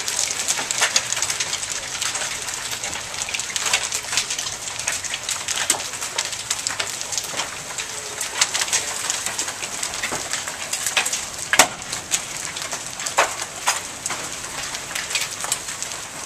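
Rain and hail falling and striking the ground, pavement and house: a steady hiss broken by frequent sharp ticks and clacks at irregular intervals.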